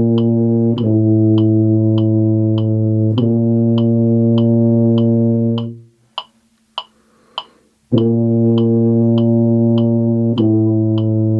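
Tuba holding low sustained whole notes over a metronome clicking at 100 beats per minute; the note changes every four clicks. About six seconds in the tuba stops for roughly two seconds while the clicks go on, then starts again on a new note.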